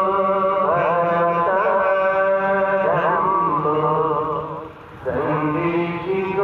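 Melodic chanting by a single voice, holding long notes that waver and slide between pitches, with a short breath break about two-thirds of the way through.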